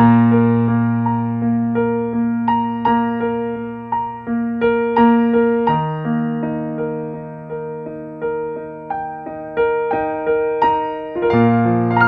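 Background piano music: an unhurried melody of struck, fading notes over held bass notes.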